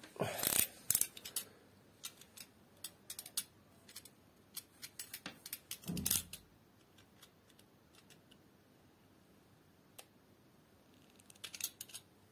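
Utility knife cutting and scraping at the rubber sheath of a power cord to strip it, a string of short clicks and scrapes. Louder knocks come about half a second in and again about six seconds in, and a cluster of clicks near the end.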